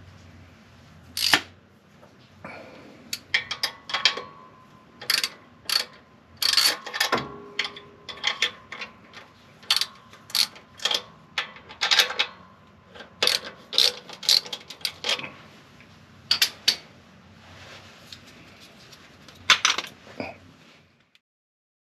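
Irregular metallic clanks and clinks of stainless exhaust pipes, clamps and hand tools being handled and fitted. Some knocks leave a brief ringing tone.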